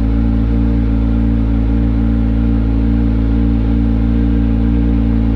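Kawasaki Ninja 1000's inline-four engine idling steadily through a freshly fitted SC Project titanium slip-on exhaust, a deep, even note with no revving.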